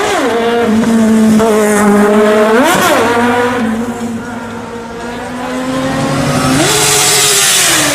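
Four-cylinder sport motorcycle engine running, blipped twice with quick rises and falls in revs, then revved and held higher near the end with a loud hiss over it.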